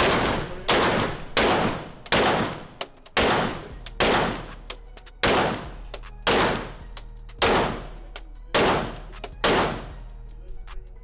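A 9mm pistol fired in a steady string of about eleven shots, roughly one a second, each with a ringing echo that dies away. The string stops shortly before the end, leaving only fainter sharp cracks.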